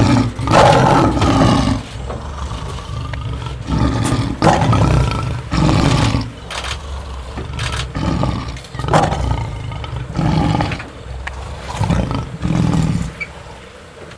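Male lion roaring: a long, loud roar in the first two seconds, then a series of shorter roaring grunts about a second apart, stopping near the end.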